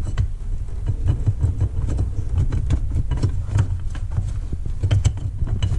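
Headlight bulb being twisted and wiggled out of its socket, with faint scattered clicks over a constant uneven low rumble.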